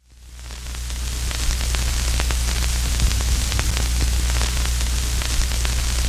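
Crackling static with a steady low electrical hum underneath, fading in from silence at the start; irregular clicks and pops run through the hiss.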